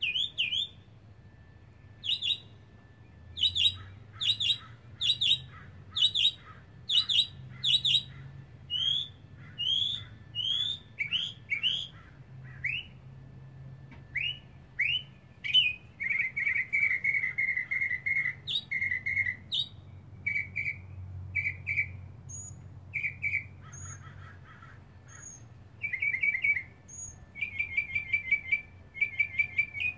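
Northern mockingbird singing a long, varied song in which each phrase is repeated several times before it switches to the next. It starts with sharp rising notes about twice a second and moves into longer upward sweeps. Just past halfway comes a fast rattling trill, followed by clipped chirps and quick trills.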